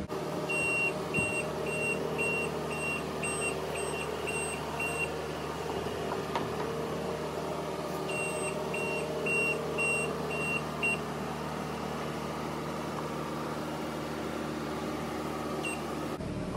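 Reversing alarm on a loader backing up, beeping about twice a second in two runs of several seconds, over the steady running of its engine.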